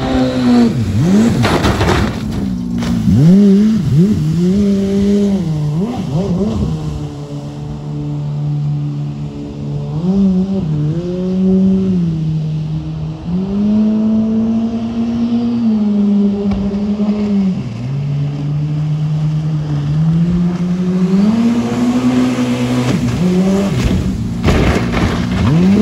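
Mini jet boat's engine running hard, its pitch rising and falling as the throttle is worked, with fast swooping pitch changes as it passes close about a second in and again near the end.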